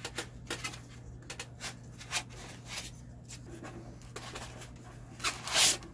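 Packing foam being worked out from under a 3D printer's plastic-wrapped heated bed by hand: scattered short rustles and scrapes, with a longer, louder scraping rub about five seconds in.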